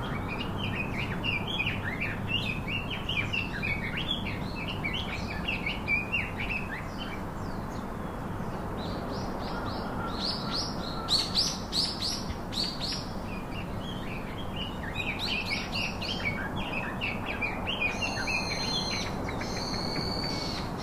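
Wild songbirds chirping and singing over a steady background hiss, with a louder run of higher calls about ten seconds in and a few clear whistled notes near the end.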